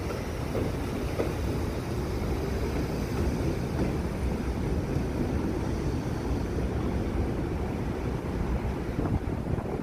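R62A subway train pulling away along the elevated track, a steady low rumble of wheels on rails with a few sharp clacks.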